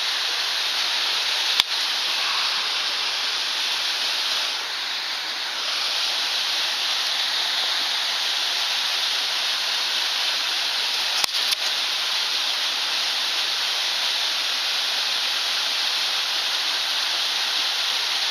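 Mountain stream waterfall and cascades rushing steadily into a pool, with a sharp click about a second and a half in and a couple more around the middle.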